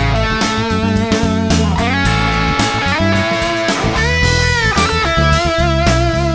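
Electric guitar played through a Klon-type overdrive pedal, a lead line with sustained notes and a note bent up and released about two-thirds of the way through, over a backing track with bass and drums.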